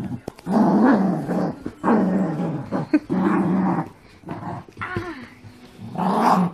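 Dogs growling in a play-fight over a toy: a series of about five loud growls, each under a second, rising and falling in pitch.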